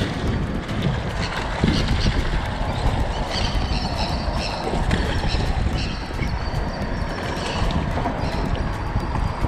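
A hooked fish splashing and thrashing at the water's surface against the rocks as it is played to the shore, with water sloshing over the rocks and wind rumbling on the microphone.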